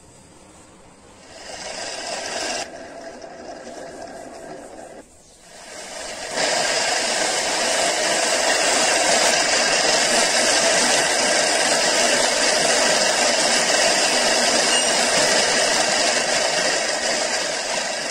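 Electric motor spinning an abrasive polishing wheel, with a brass airbrush part pressed against it for buffing: a steady grinding hiss. It starts about a second in, drops out briefly around five seconds, then comes back louder and runs steady.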